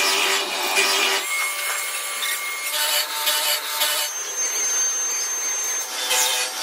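Metal being machined: a cutting tool scraping and grinding on metal with high steady squeals. The noise changes abruptly several times, about every second or two.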